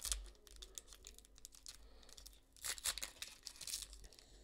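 Foil wrapper of a Contenders basketball trading-card pack crinkling and tearing as it is handled and opened, in two short bursts, the second about three seconds in.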